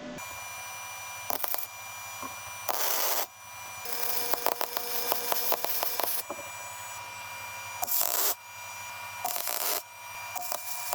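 A power tool's motor runs steadily while the tool bites into the workpiece in repeated loud rasping bursts, with a run of quick strokes in the middle.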